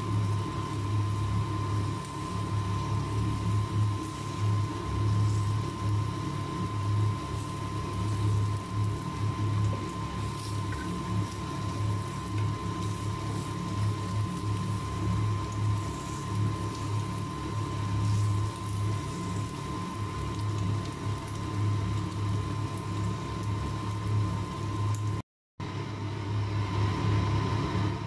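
Thin strips of pork sizzling on a ribbed electric grill plate: a steady hiss over a steady low hum, with a brief dropout near the end.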